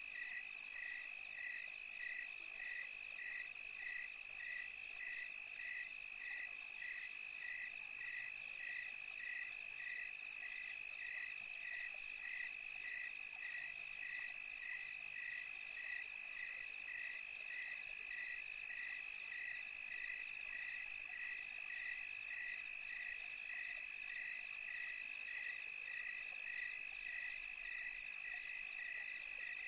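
Night chorus of calling insects and frogs: a steady high-pitched trill with a short chirp repeating evenly about twice a second.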